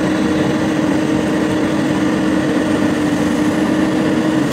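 Komatsu PC200 hydraulic excavator's diesel engine running at a steady pitch as the boom works the bucket in a pile of soil.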